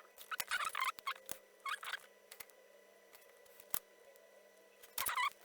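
Small clicks and short scratchy rustles of electronic components and small hand tools being handled while parts are prepared for a relay circuit: several in the first two seconds, a quiet stretch, then more near the end.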